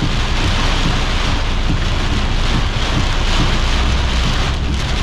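Thunderstorm rain and strong winds of about 70 km/h, wind buffeting the microphone over the steady hiss of heavy rain, with a continuous low rumble underneath.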